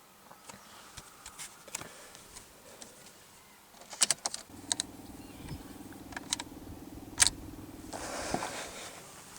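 Car keys jangling and clicking in the ignition of a 2001 Ford Focus Mk1 diesel, then a steady electric hum for about four seconds with sharp clicks. The engine does not start.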